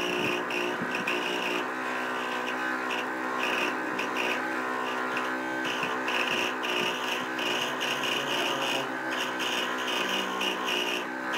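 Luxter scroll saw running, its blade cutting a curve through a small wooden block with a steady hum and an uneven rasp as the wood is fed.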